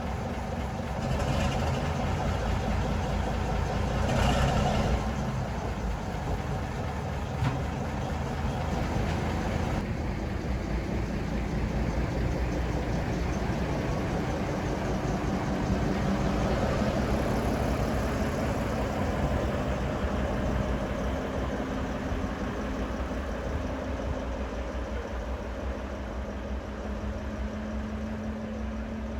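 Diesel locomotive engine running steadily with a low, even throb, with short hissing surges a second and about four seconds in.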